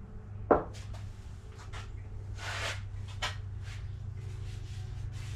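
A metal can is set down with a sharp clunk on a wooden workbench about half a second in, followed by scattered short rustles and scrapes of a rag being handled in an aluminium paint tray, over a steady low hum.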